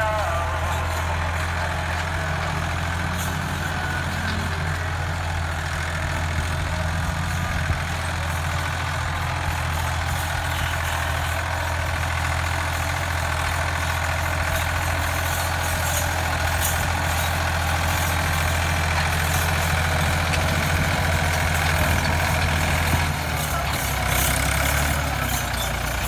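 Ford 4000 tractor's three-cylinder engine running steadily while it pulls a disc harrow through ploughed soil. Its note drops briefly near the end, then picks up again.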